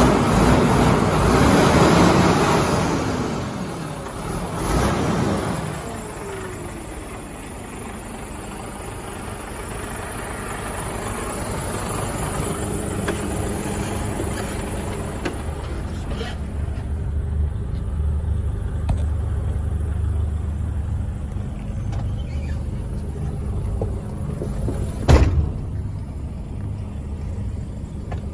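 Mercedes Actros 1845's 12.8-litre straight-six diesel idling, loud and rushing at first beside the truck, then a steady low hum. A single sharp click comes near the end.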